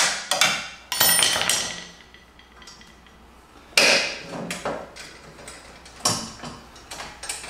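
Sharp metallic clanks and knocks from a straight screwdriver prying at a stubborn small V-band clamp on a turbo wastegate, a handful of strikes each ringing briefly, the loudest about one second and four seconds in.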